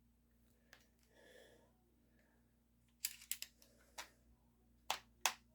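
Sharp mechanical clicks from a Mercury Rise TR50 paintball revolver being handled: a quick cluster about three seconds in, then single clicks spaced about a second apart near the end.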